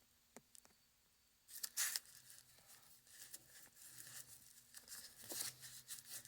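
Faint rustling and handling noises with a few light clicks, over a faint steady low hum.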